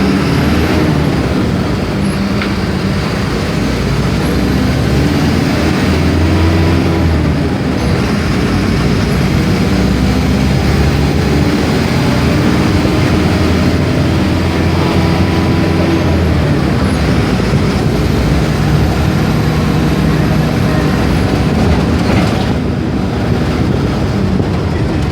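Mercedes-Benz OF-1418 bus's six-cylinder diesel engine pulling the bus along, its note climbing under load. The note drops sharply about seven seconds in and again about sixteen seconds in, as at gear changes, then runs lower and steadier.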